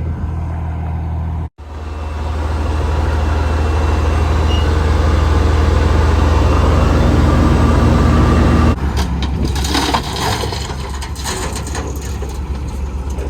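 Heavy gravel-hauling truck's diesel engine running steadily, its level rising slowly over several seconds after a brief dropout about a second and a half in. Near nine seconds in the sound changes abruptly to a noisier rumble with scattered knocks.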